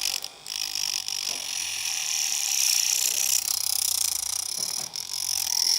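Homemade hobby drill, a small DC motor spinning a sandpaper disc, grinding against a screwdriver tip: a steady, high abrasive hiss with a brief drop about a second in.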